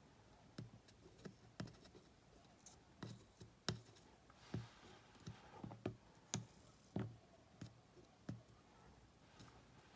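Faint, irregular clicks and light taps of small tools against small metal parts, as a battery contact in a cassette player's battery box is nudged into position.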